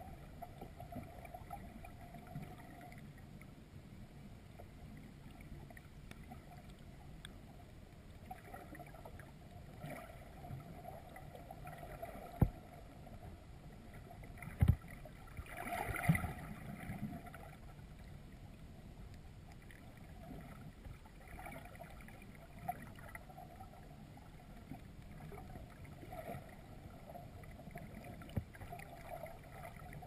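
Muffled underwater ambience picked up by a submerged camera: a low rumble of moving water with a faint hiss. Two sharp knocks come around the middle, followed a moment later by a brief rush of noise.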